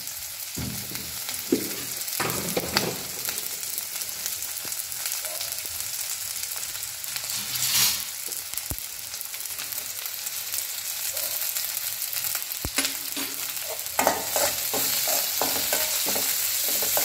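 Shallots, green chillies and ginger sizzling steadily in a little oil in an aluminium kadai. A steel spoon scrapes and stirs them against the pan a few times near the start, once more strongly about eight seconds in, and repeatedly over the last few seconds.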